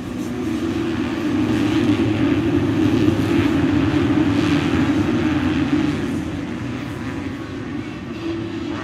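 A full pack of 250cc motocross bikes running hard together off the start and into the first turn, a dense blend of many engines at high revs. It is loudest from about two seconds in and eases slightly near the end.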